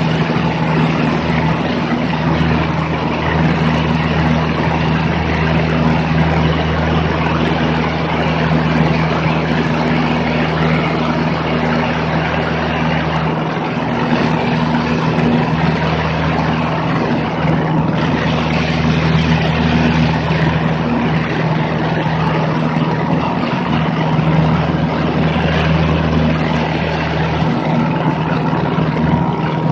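Single-engine high-wing plane's piston engine and propeller running steadily in cruise flight, a constant low drone under a heavy, even rush of airflow.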